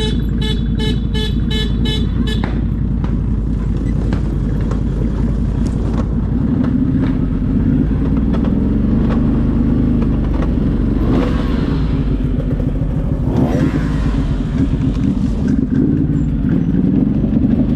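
ATV engine running steadily while riding, its pitch briefly rising and falling twice in the middle. A rapid series of short, high beeps sounds over it for the first two seconds or so.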